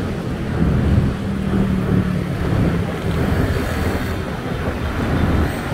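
Wind rushing over the microphone and road noise from a moving bicycle, with a motor vehicle's engine humming steadily alongside from about half a second to three seconds in.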